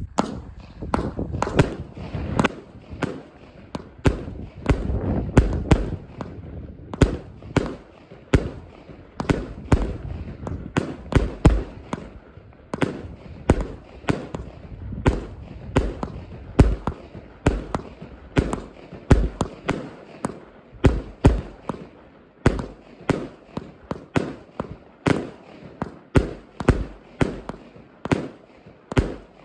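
A 200-shot compound fireworks battery firing shot after shot: a long, quick series of sharp bangs, about two a second.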